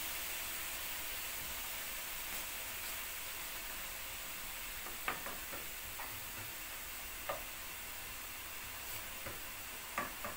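Diced carrots and onion sizzling in a little water in a nonstick frying pan, a steady hiss. From about five seconds in, a wooden spatula stirs them, knocking and scraping against the pan several times.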